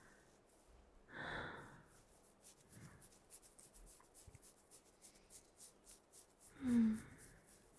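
A woman's soft exhale close to the microphone about a second in, then faint close-up rustling and scratching, and a short hummed sigh near the end.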